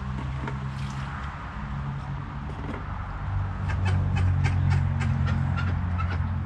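White call ducks quacking, with a run of quick small clicks and rustles in the second half.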